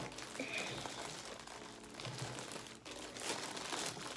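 Packaging crinkling and rustling as statue parts are unwrapped by hand, with small clicks and crackles.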